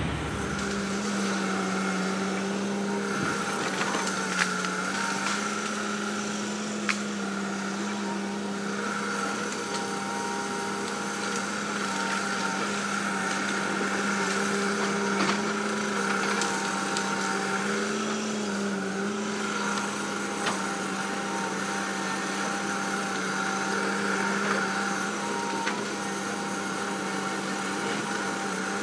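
Heavy earthmoving machine's diesel engine running steadily under work, with a slight change in engine speed about two-thirds through and a few sharp knocks.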